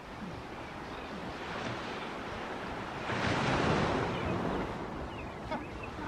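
Surf washing onto a sandy beach: a steady wash that swells loudest as a wave comes in about three seconds in, then eases.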